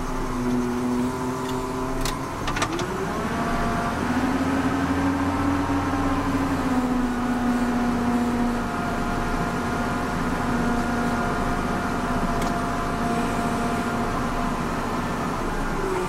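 Volvo BM L70 wheel loader's six-cylinder Cummins diesel engine running under load, heard from inside the cab. The engine speed rises about three seconds in, holds, and eases back down near the end, with two sharp clicks about two seconds in.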